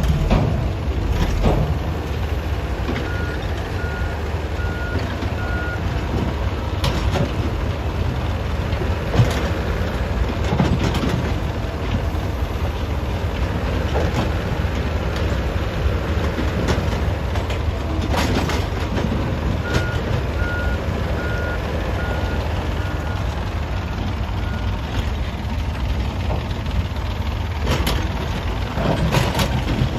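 Heavy diesel machinery, an excavator and a truck, running steadily under load while a backup alarm beeps in two runs of evenly spaced beeps. Several short sharp bursts of noise cut through the engine sound.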